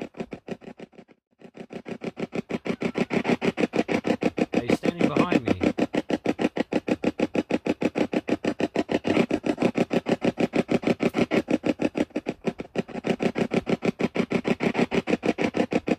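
Spirit box sweeping rapidly through radio frequencies: a fast, regular chopping of static and snatches of radio, many times a second, with a brief drop-out about a second in.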